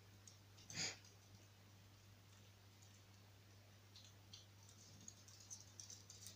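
A puppy's claws clicking faintly on a laminate floor as it moves about, with one brief, louder bump about a second in. A low, steady hum runs underneath.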